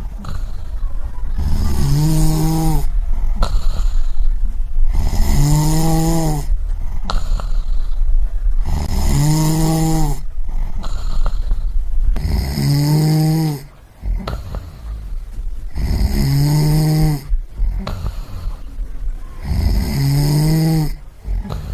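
A person snoring in a slow, even rhythm, about six snores, one every three and a half seconds.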